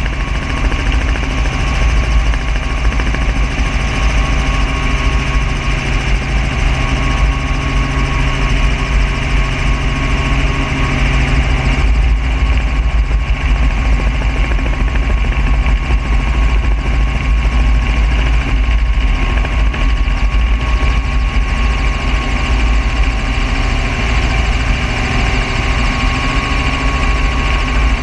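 Helicopter in low, slow flight, heard from inside its open-doored cabin: loud, steady rotor and engine noise with wind rushing past the doorway. A low hum in it drops away about halfway through.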